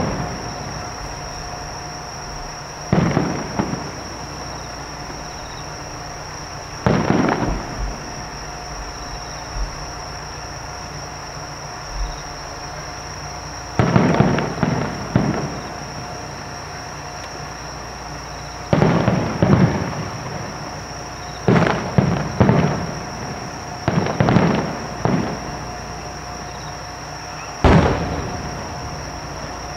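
Aerial fireworks shells bursting in the distance: irregular booms, each with an echoing tail, about a dozen in all, some coming in quick pairs and clusters.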